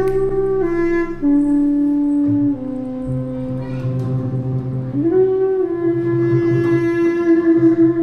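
Live improvised music: a reedy melody of long held notes steps down in pitch over the first few seconds, then rises again about five seconds in and holds, over a low sustained double bass note.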